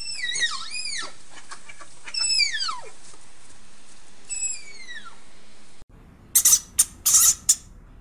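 Malayan tapirs squeaking in high-pitched whistles: a few short rising-and-falling squeaks, then two long whistles that slide down in pitch. Near the end a few short, sharp scratchy noises take over, louder than the whistles.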